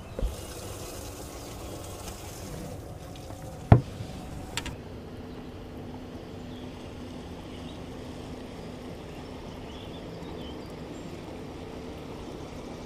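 A small electric motor aboard a bass boat hums steadily. A sharp knock about four seconds in is the loudest sound, followed by a lighter click, and there is a faint hiss in the first three seconds.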